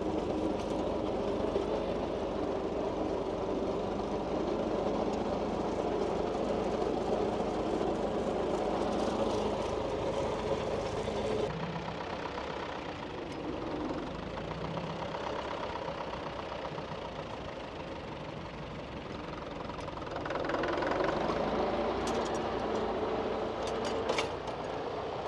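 Vintage Fordson tractor engine running steadily, quieter for a stretch in the middle, then revving up with a rising pitch about twenty seconds in.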